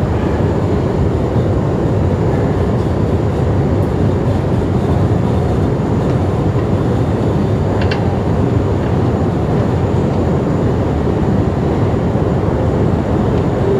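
Steady low rumble of a long escalator running in an underground metro station, heard while riding it, with a faint brief click about eight seconds in.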